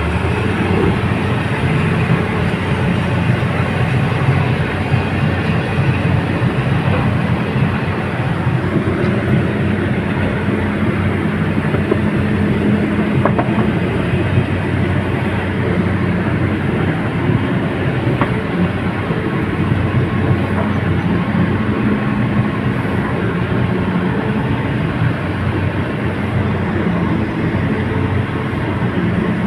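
Heavy diesel machinery running steadily with a continuous rattling clatter, as from tracked excavators on the move.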